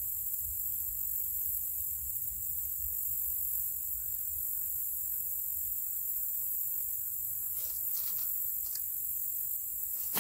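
Steady, high-pitched chorus of insects droning without a break, with a few light clicks near the end.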